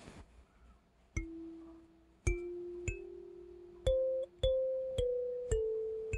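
Background music: a slow, sparse melody of single struck, bell-like notes, about seven of them, each ringing on and fading before the next.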